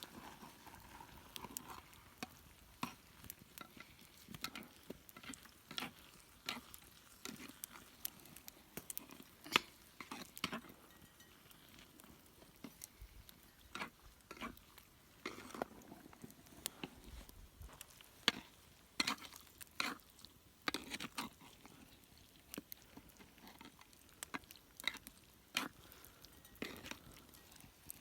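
Cooking sounds: scattered, irregular light clicks and knocks of food being stirred in a pot.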